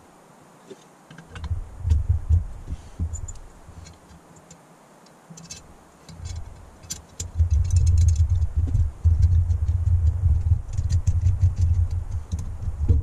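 Small metal clicks and clinks from a Holley four-barrel carburettor being taken apart by hand and with a screwdriver. Under them, a low rumble comes in briefly about a second in and then runs steadily through the second half.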